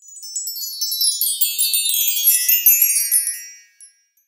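Tinkling chime sound effect: a dense cascade of high, bright bell-like notes that builds over the first second and fades out about three and a half seconds in.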